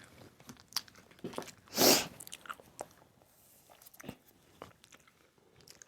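Close-up mouth sounds of sushi being chewed: soft wet clicks and smacks, with one louder, brief noisy sound about two seconds in.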